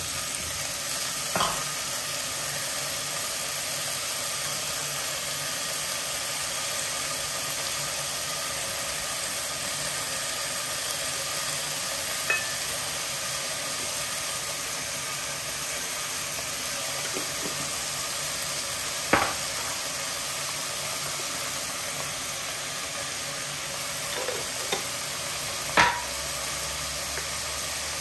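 Vegetables frying in a pan with a steady sizzle. A few sharp knocks of kitchenware against the pan break it, the loudest near the end.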